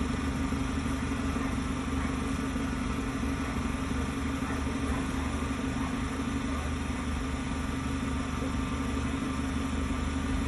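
An engine idling steadily, a continuous low hum with no change in pitch or level.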